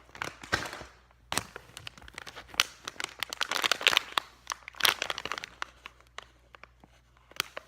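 Irregular crinkling and rustling with scattered clicks as squishy toys are handled, busiest in the middle and thinning out to sparse clicks near the end.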